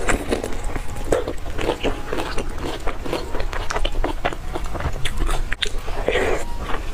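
Close-miked wet chewing and biting of youtiao (fried dough sticks) soaked in soy milk, full of small wet mouth clicks. There is a bite at the start and another about six seconds in.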